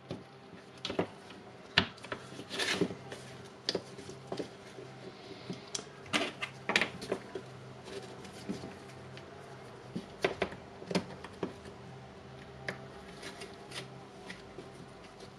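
Irregular clicks and knocks of a cordless impact wrench's plastic and metal parts being handled and fitted together by hand during reassembly, some in quick clusters, over a steady low hum.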